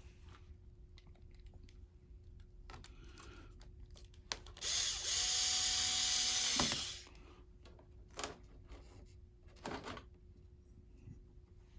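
A small electric screwdriver runs for about two seconds, driving a screw as the laptop's bottom panel is screwed back down. A few light clicks of handling follow.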